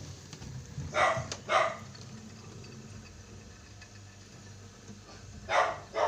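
A dog barking: two quick barks about a second in, and two more near the end.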